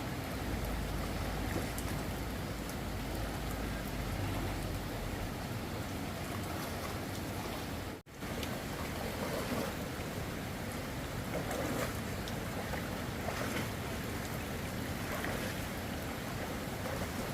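Steady rushing noise of water, most likely floodwater, with a deep rumble in the first few seconds. The sound cuts out briefly about eight seconds in, then carries on.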